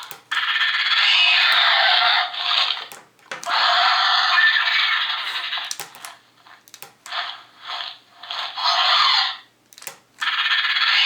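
Electronic pterosaur screeches played through the small speaker of a Mattel Roarivores Pteranodon toy: several shrill, raspy calls of one to three seconds each, a few different sounds in turn, with sharp clicks in the gaps between them.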